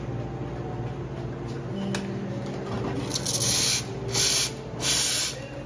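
Commercial espresso machine's steam wand purged in three short blasts of hissing steam, each under a second, about three seconds in: clearing the wand before steaming milk. A steady low hum from the machine underneath.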